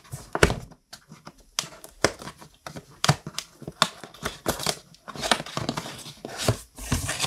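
White cardboard box being opened by hand: fingernails pick and scratch at the end flap, with irregular clicks, crinkling and a little tearing of the flap or seal.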